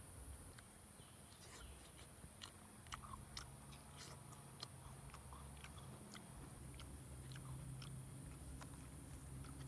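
Someone biting and chewing crunchy roasted vegetables: irregular crisp crunching clicks, over a steady faint high-pitched hiss.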